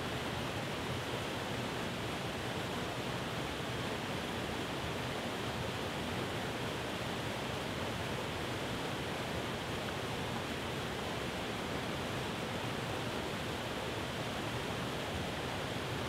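Waterfall pouring over rock ledges: a steady, unbroken rush of water.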